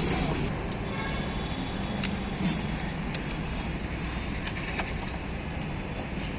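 A steady low vehicle rumble with scattered sharp clicks and light metallic taps, about half a dozen over a few seconds.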